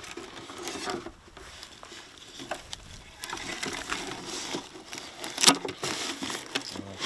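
Rustling and light scraping as a clear plastic box of wood shavings is tipped and handled among plant stalks, with scattered clicks and a sharp knock about five and a half seconds in.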